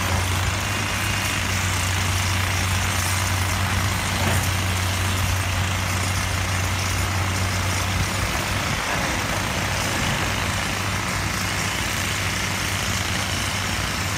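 Crawler rock drill rig running while it drills into rock: a loud, even engine drone under a constant hiss of noise. The low drone eases about halfway through.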